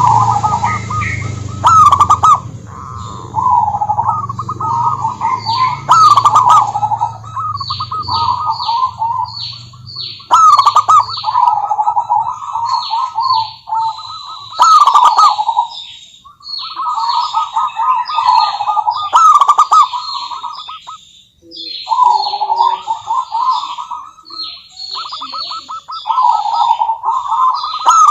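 Zebra doves singing: repeated phrases of rapid, trilled cooing notes, one phrase every few seconds with a short pause about two-thirds of the way through. Higher, short chirps run alongside the cooing.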